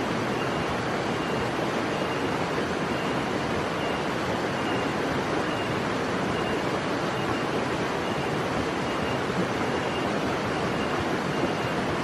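Steady, loud rushing hiss with faint, short high notes repeated about every 0.7 seconds, a blue-eared barbet calling.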